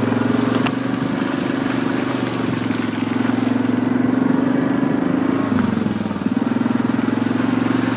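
Yamaha ATV engine running at a steady low throttle, easing off about five and a half seconds in, its pitch dropping, then picking back up.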